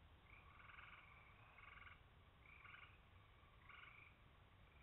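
Faint frog calls: a run of short trilled calls, each a rapid string of pulses, coming about once a second.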